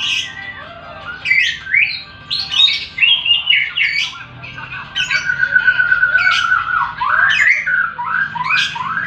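Lovebird singing: a string of sharp rising squeaks and chirps, with a fast ticking trill lasting about two seconds from around five seconds in. This is the chattering 'ngekek' song with 'ngetik' typing-like ticks that lovebird keepers prize.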